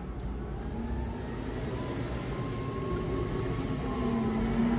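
Vehicle engine running at idle: a steady low rumble with a faint hum that rises slightly near the end.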